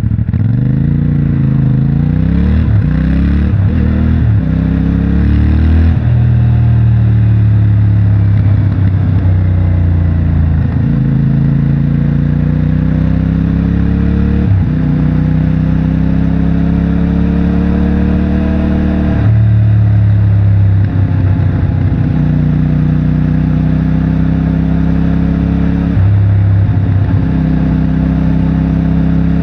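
CFMOTO 450MT's 449 cc parallel-twin engine through its stock exhaust, ridden under acceleration: after quick rises and falls in revs in the first few seconds, the engine note climbs steadily and drops sharply at each upshift, four times.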